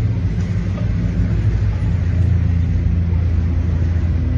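A steady low rumble with a droning hum, with no sudden blast in it.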